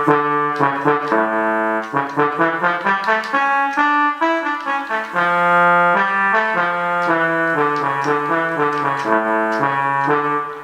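Travel Sax 2 digital wind instrument playing a melody on its trombone voice, a synthesized brass tone in the low-middle register, with a mix of held and shorter notes.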